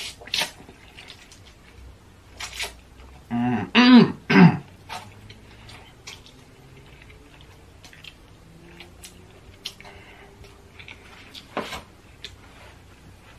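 Close-miked eating: noodles slurped from chopsticks and wet chewing with lip smacks and small clicks. A few short voiced throat noises about three to four and a half seconds in are the loudest sounds.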